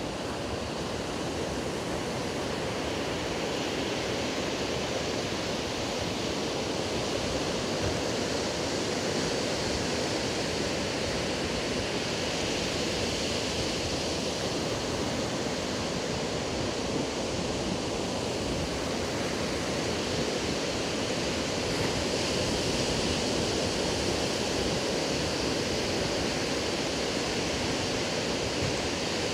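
Ocean surf breaking on a sandy beach: a steady rushing wash of waves that swells and eases slowly.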